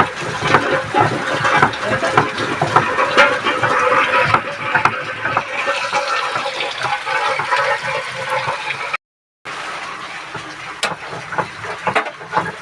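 Steady rushing, splashing water noise with scattered small clicks and knocks. It cuts out briefly about nine seconds in.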